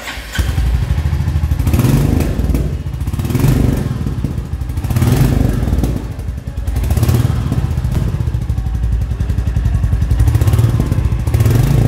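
Royal Enfield Meteor 350's 349 cc single-cylinder four-stroke engine running, heard through its chrome exhaust silencer as a steady low thumping beat. Its loudness rises and falls several times as the throttle is opened and eased.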